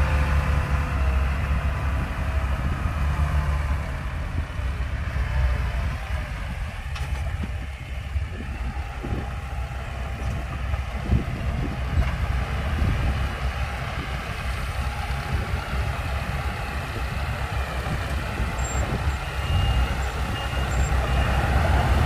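Diesel engines of a 5-ton dump truck and Komatsu mini bulldozers running steadily as the truck works through loose sand, louder at the start and again near the end as the dump bed goes up. A few faint short high beeps come in near the end.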